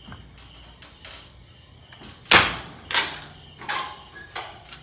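Wire-mesh cage knocking and rattling: one loud clack a little past two seconds in, then a few lighter knocks.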